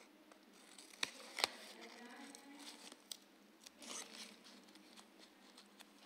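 Small scissors cutting a nail slider-decal sheet: two sharp snips about a second in, then softer rustling of the sheet near four seconds.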